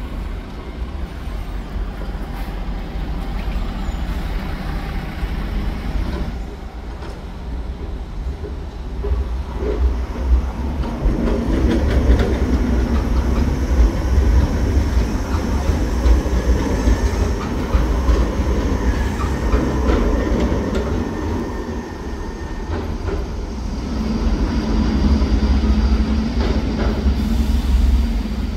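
A Stadler Tramlink 'Tina' low-floor tram passing close by, with rumbling wheel and rail noise that grows loudest midway as it goes past and then eases off. Street traffic, including a bus pulling past at the start, rumbles underneath.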